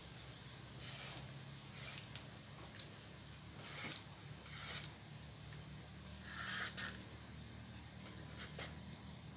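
A hand peeler scraping strips of skin off a firm papaya, in short scraping strokes roughly once a second, with a double stroke about six and a half seconds in.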